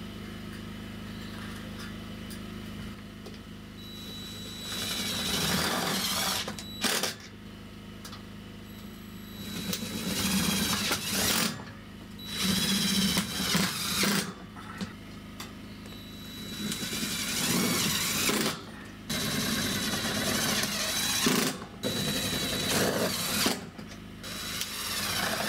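Cordless drill running in about six bursts of one to two seconds each, driving screws overhead to fasten aluminum angle to the header.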